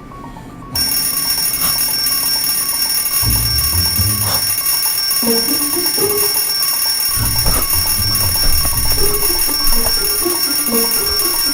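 An alarm clock bell ringing on and on, starting sharply after a brief silence near the start, with music and bass notes underneath.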